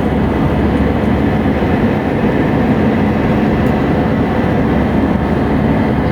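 Steady roar of an airliner's jet engines and rushing air heard from inside the passenger cabin during the climb after takeoff, with an even hum running under it.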